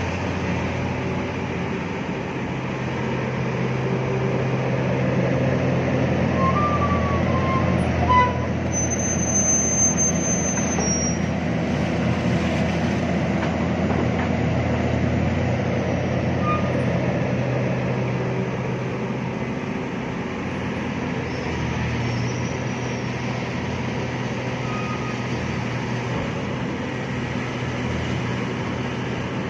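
Excavator's diesel engine running steadily under work, with a short sharp knock about eight seconds in.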